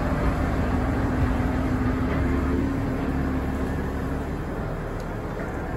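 Diesel locomotive dressed as Toby the Tram Engine running slowly past and moving away, a steady low engine hum that grows gradually fainter.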